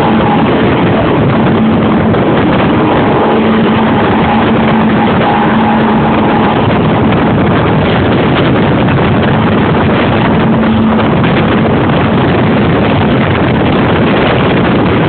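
Motorboat running at speed: a loud, steady rush of wind and water noise on the microphone, with the boat engine's hum showing through in the first two-thirds.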